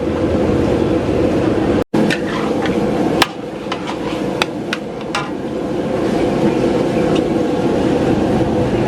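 Metal spatula knocking against a wok, about eight sharp clanks between two and five seconds in, over the steady rushing noise of a strong gas burner as noodles are stir-fried.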